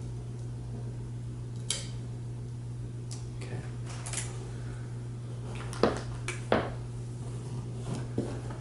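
Scattered light clicks and clacks of hard equipment parts being handled, about nine in all, the loudest a pair around six seconds in, over a steady low hum.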